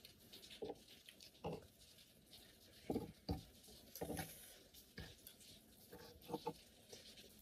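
Quiet eating sounds: about eight soft, irregular clicks and taps of forks against bowls and plates, with chewing between them.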